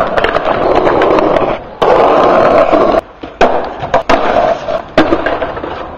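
Skateboard wheels rolling hard over stone paving, broken by sharp clacks of the board's tail popping and the deck landing. The rolling cuts off and comes back abruptly a couple of times.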